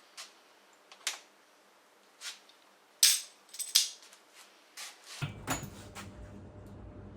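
Metal tools and small engine parts clinking and clanking on a workbench during motorcycle engine disassembly, with about ten separate irregular knocks, the loudest about three seconds in. A steady low hum comes in about five seconds in.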